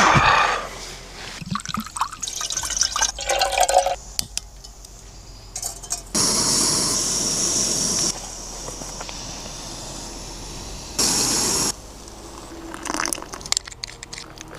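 Water being poured and handled, with clinks and knocks between; a steady pour lasts about two seconds near the middle and a shorter one comes later.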